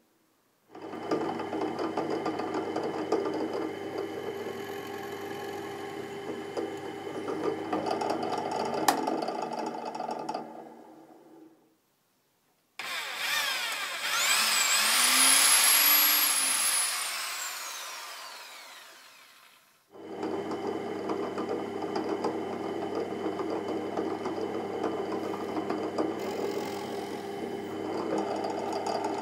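Radial drill press running steadily as it drills small holes in a mahogany guitar body, stopping about eleven seconds in. A hand-held electric drill then whines quickly up to speed and slowly winds down, after which the drill press runs steadily again.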